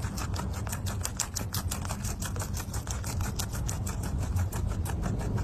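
Rabbit chewing leafy greens close to the microphone: a fast, continuous run of crisp crunching clicks over a low steady hum.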